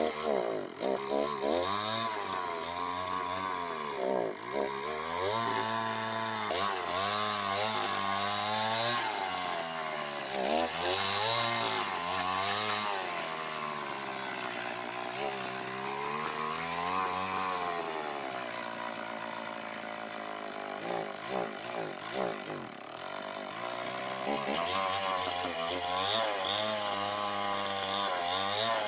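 Chainsaw running and cutting, its engine pitch rising and falling over and over as it revs up and drops back.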